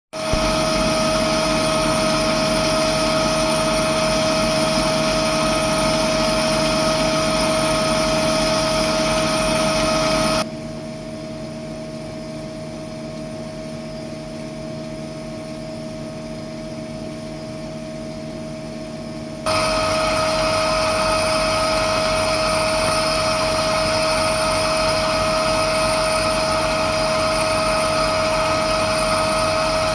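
AtomStack CO2 Hurricane laser engraver running while engraving a glass wine bottle: a steady machine whir with a constant whine. Its level drops sharply a little past a third of the way in and comes back just as sharply about nine seconds later.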